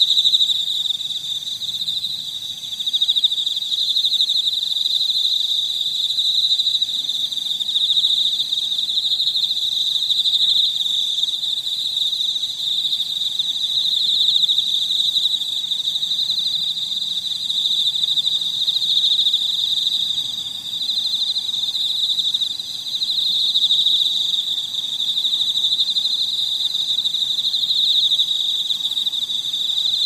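Insects trilling in a continuous high-pitched chorus that never breaks, only swelling and dipping slightly in loudness now and then.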